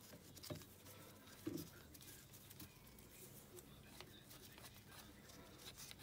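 Near silence with a few faint clicks and light knocks, the two loudest about half a second and a second and a half in. They come from a screwdriver and a gloved hand working loose the rocker (valve-adjustment) cover on an air-cooled 250 cc ATV engine.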